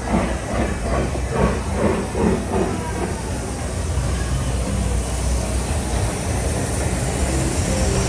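Park train locomotive chugging rhythmically for the first few seconds, then a steady low rumble with a hiss.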